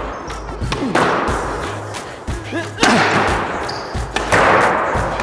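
Squash rally in an echoing court: several sharp smacks of the ball off racquets and walls, the loudest about 1, 3 and 4.5 seconds in, each ringing on briefly. Background music with a steady bass runs underneath.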